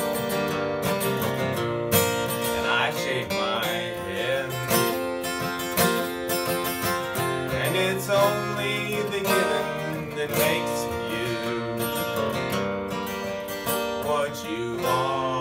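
Steel-string acoustic guitar playing an instrumental passage, chords picked in a steady rhythm.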